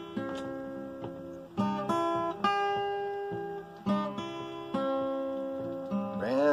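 Acoustic guitar played solo in a folk song's instrumental break: a handful of chords struck about a second apart, each left to ring and fade. A man's singing voice comes back in near the end.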